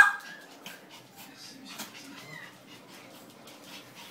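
Small German spitz dog giving one sharp yap at the start, followed by faint scuffling and a brief soft whine about two seconds in.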